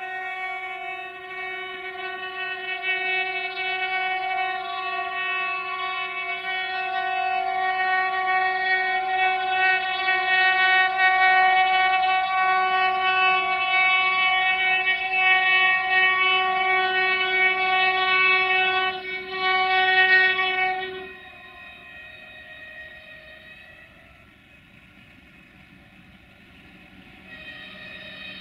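Train horn of an approaching DB Cargo class 232 'Ludmilla' diesel locomotive, held in one long, loud blast for about twenty seconds with a brief break near the end of it. Once the horn stops, the locomotive's lower engine rumble is left, and another steady tone comes in near the end.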